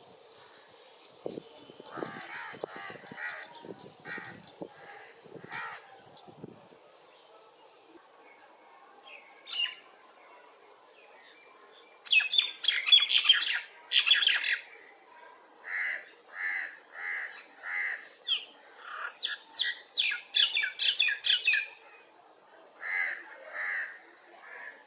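Birds calling: a few scattered calls at first, then loud harsh squawks about halfway through, followed by a run of short, evenly spaced notes and quick chattering calls.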